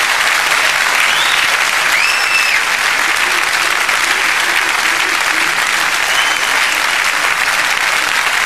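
Large theatre audience applauding steadily at the end of a song, with a few high calls or whistles from the crowd rising above the clapping about two seconds in and again a little after six seconds.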